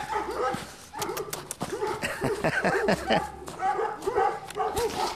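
Pug puppy giving a run of short, high-pitched barks, several a second, with a few sharp clicks about a second in.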